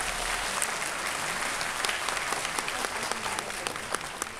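Applause from many people clapping as the music ends, thinning out gradually toward the end.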